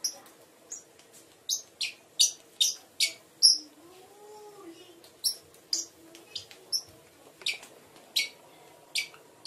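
Pet parrots at a seed-stick toy chirping: a string of short, sharp, high chirps, at times several a second, with a pause about four seconds in.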